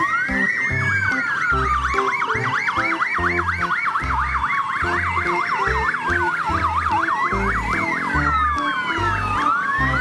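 Several fire engine sirens sounding together: slow rising-and-falling wails, with a fast yelp of about five cycles a second in the middle. Background music with a steady beat plays underneath.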